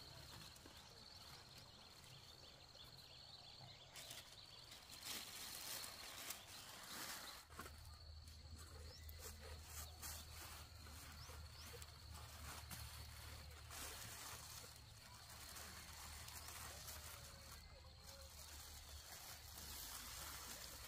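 Near silence: faint outdoor background noise with a steady thin high tone and a low hum, and a few soft rustles between about four and eight seconds in.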